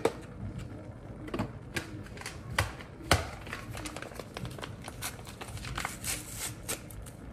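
Chili seasoning packets being torn open and emptied into the pan: irregular light crinkles, taps and clicks, a few sharper ones about a second and a half and three seconds in.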